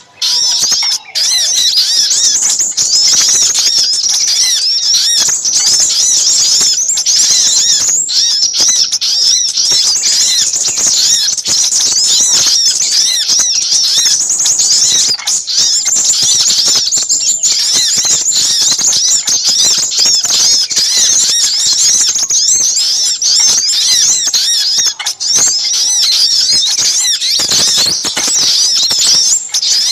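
Bird-lure recording of small birds chattering in a dense, excited chorus: many overlapping high-pitched chirps and twitters, sogok ontong calls mixed with sepah raja (crimson sunbird) calls, with no pause after a brief dip at the very start.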